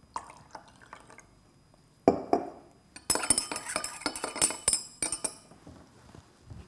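Colourless solution poured from a glass measuring cylinder into a glass beaker, then a glass stirring rod clinking rapidly against the inside of the beaker for about two seconds as the two solutions of an iodine clock reaction are stirred together.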